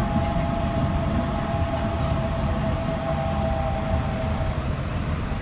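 Yurikamome 7500 series rubber-tyred automated guideway train running, heard from inside the car: a steady low rumble with a steady whine over it that fades out about four and a half seconds in.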